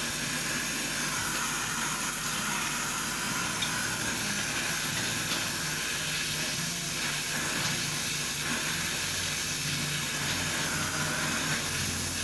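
Carbide-fed acetylene gas welding torch flame hissing steadily while a new charging pipe is welded onto a refrigerator compressor.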